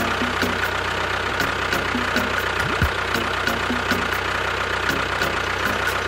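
Tractor engine running at a steady idle, with faint regular clicks about twice a second.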